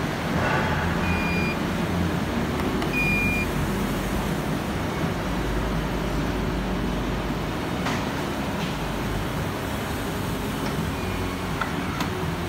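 Aftermarket electric tailgate on a Hyundai i30 wagon: two short high beeps from its warning buzzer, about a second and three seconds in, then sharp clicks near the end as the tailgate shuts. All of it sits over a steady background hum.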